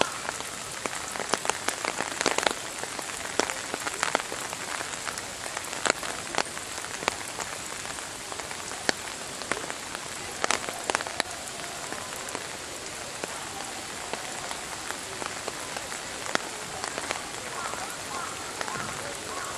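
Steady rain falling on wet rock, with frequent sharp drops striking close by at irregular moments.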